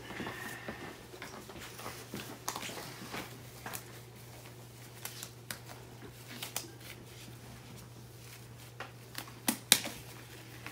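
Rustling and light clicking of nitrile exam gloves being taken and pulled on, with two sharp snaps of the cuffs near the end. A steady low hum runs underneath.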